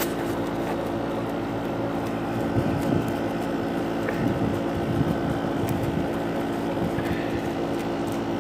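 Air conditioner running, a steady hum with several held tones, and a few faint low rumbles in the middle.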